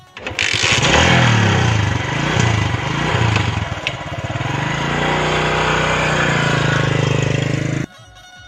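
Motorcycle engine starting up and revving unevenly, then running at a steadier, higher pitch. It cuts off abruptly about a second before the end.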